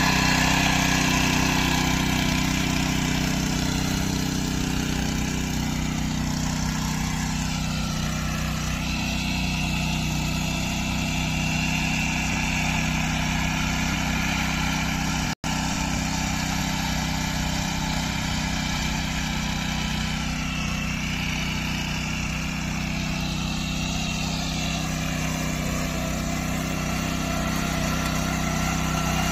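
Small engine of a modified power weeder (rotary tiller) running steadily as it tills soil, with a momentary break about halfway through.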